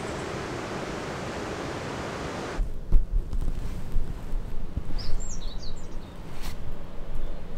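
A steady hiss of rushing water cuts off abruptly about two and a half seconds in. It gives way to wind rumbling on the microphone and a small bird chirping a few times.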